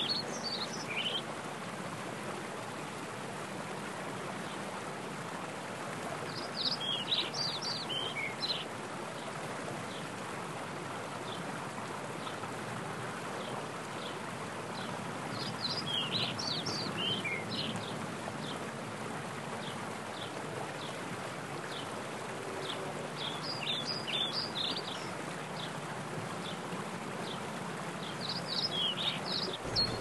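Mountain stream rushing steadily over rocks in small cascades. A songbird sings a short, quick phrase of high chirping notes five times, about every seven or eight seconds.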